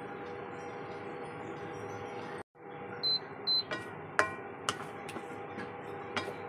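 A steady hum with a constant tone. After a brief cut come two short high beeps, then a few sharp knocks with a short metallic ring as a spatula strikes the pan while stirring shredded cheese into the meat sauce.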